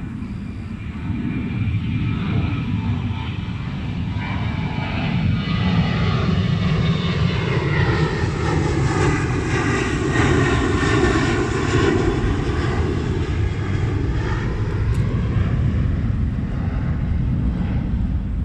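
An aircraft passing overhead: a steady engine drone that grows louder toward the middle and stays loud.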